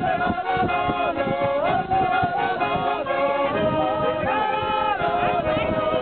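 A small group of women singing a folk song along with a Schwyzerörgeli, a Swiss button accordion, which holds steady chords under their wavering voices to an even beat.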